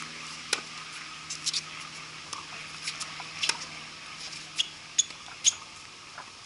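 Tennis rally on a hard court: a string of sharp pops from the ball striking racket strings and bouncing on the court, irregularly spaced, with the loudest hits near the end.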